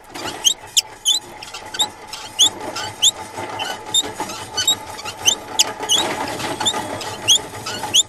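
Cartoon soundtrack of short, high squeaks gliding in pitch, about two a second, over a steady background hiss.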